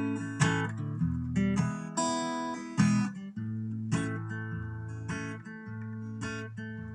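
Acoustic guitar playing a slow country intro, with strummed chords struck about once a second and left ringing between strokes.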